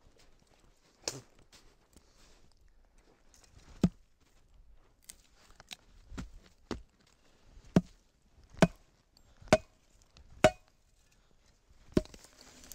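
Sharp, separate knocks and cracks of wood as branches and brush are handled and broken. They come irregularly at first, then about once a second for a few seconds near the middle and end.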